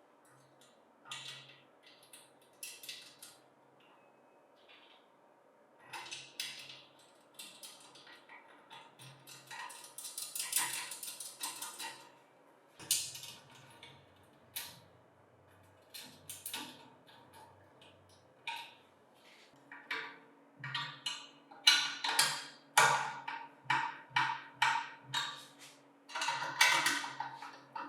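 Irregular clicks and knocks of metal parts and hand tools being handled, with a stretch of scraping about ten seconds in and busier knocking in the second half.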